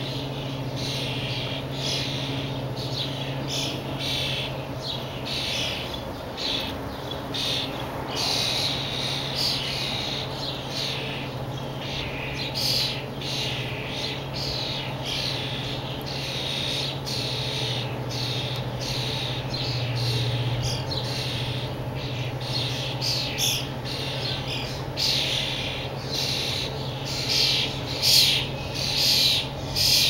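European starling fledglings giving repeated harsh, raspy begging calls as an adult feeds them beak to beak, the calls coming thick and fast and growing louder near the end. A steady low hum runs underneath.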